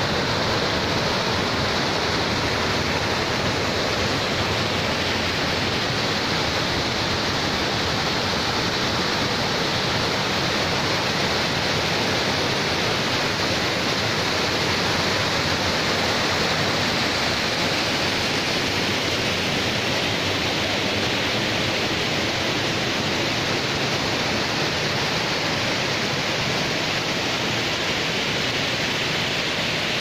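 Waterfall cascading over rock terraces and stepped weirs: a steady, unbroken rush of falling water.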